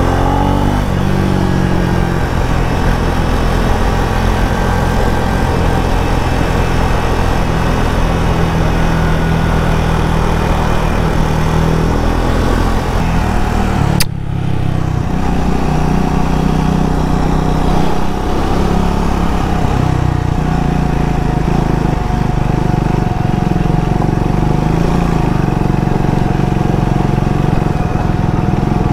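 Triumph Speed 400's single-cylinder engine running under way, its pitch rising and falling with throttle, mixed with steady wind and tyre noise. About halfway a sharp click and an abrupt change in the sound, after which a faint steady high tone runs alongside the engine.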